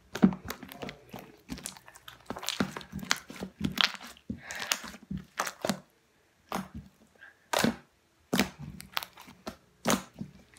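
Thick homemade slime being kneaded and squeezed by hand, giving off irregular squishy pops and crackles, with two brief pauses in the second half.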